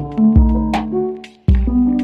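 Background music with a steady beat: sustained pitched notes over a deep bass, with sharp percussion hits.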